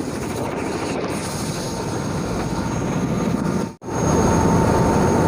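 Helicopter engine and rotor noise up close, a loud steady rush. It breaks off for an instant a little under four seconds in and comes back louder, now with a steady high whine.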